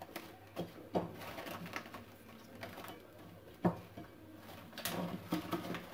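Plastic cling film crinkling as it is stretched and pressed over a glass mixing bowl to cover rising dough, with a few sharp light clicks, the loudest about three and a half seconds in.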